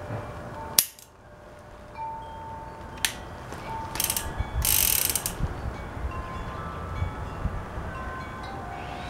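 An unloaded stainless revolver dry-fired with one sharp metallic click about a second in, then another click and a brief rattling whirr as the cylinder is worked by hand. Wind chimes ring faintly throughout.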